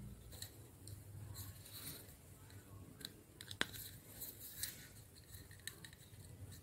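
Faint scattered rustles and light clicks of hands handling a plastic LED bulb housing and its hookup wires, with one sharp click about three and a half seconds in.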